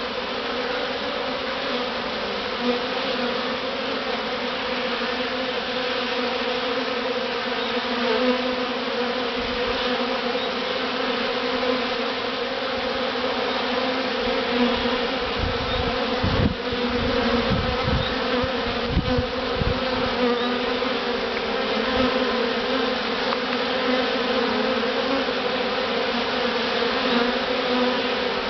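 Honey bee swarm buzzing close up: a dense, steady hum of many bees with a clear, even pitch, as the swarm settles into a hive box. A few low bumps come through in the middle.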